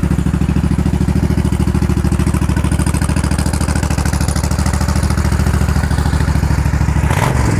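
Suzuki Intruder VL1500 V-twin idling steadily through aftermarket Jardine mufflers, running fast on the choke just after a start. The note shifts about seven seconds in.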